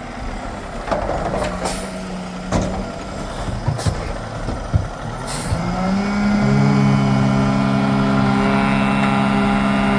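Heavy diesel engine under a run of scattered knocks and clanks and a short hiss, then revving up about six seconds in and holding a high, steady speed.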